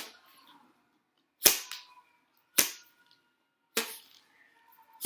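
Five sharp snapping clicks about a second apart, from the packaging of a pack of playing cards being torn or cut open.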